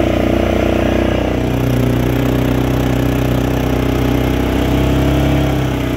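Four-wheeler (ATV) engine running steadily as it drives across a grass field. Its pitch drops a little about a second and a half in, then holds.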